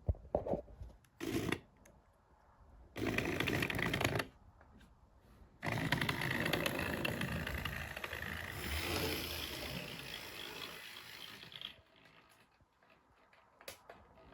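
Hornby Triang dock shunter model locomotive running on the track in spurts, its small electric motor whirring and its wheels rattling on the rails: a brief burst about a second in, another of about a second at three seconds, then a longer run of about six seconds. The loco will not accelerate smoothly, jumping between very slow and very fast, which the owner puts down to a power spike.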